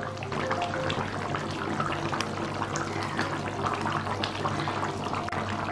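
Thick chicken and potato curry simmering in a kadai, the gravy bubbling with frequent small pops over a steady low hum.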